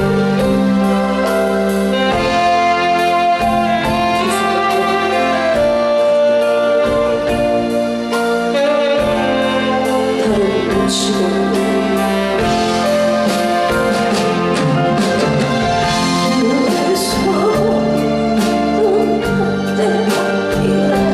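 Live band music with a saxophone carrying the melody over a steady beat.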